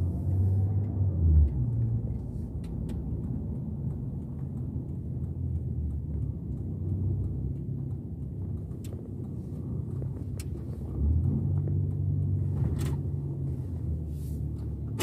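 Car engine hum and road rumble heard from inside the cabin as the car drives slowly. The engine hum swells in the first second or so and again from about eleven seconds in.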